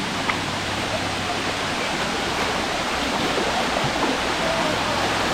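Steady rush of water from a creek waterfall.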